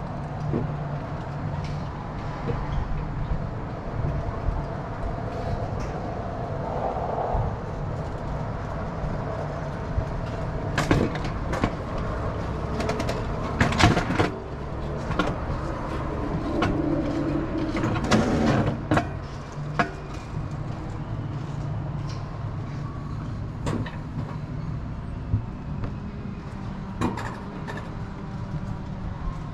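Alpine coaster cart rolling along its steel rail track: a steady low drone from the wheels, broken by sharp clanks and rattles now and then, most of them in the middle of the run.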